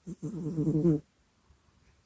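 A sleeping house cat snoring close to the microphone: one pitched, buzzing snore about a second long, opening with a brief catch.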